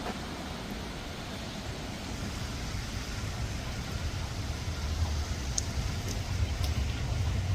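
A car approaching along a wet street: its low rumble grows steadily louder from about three seconds in, over a steady hiss, with a few faint ticks near the end.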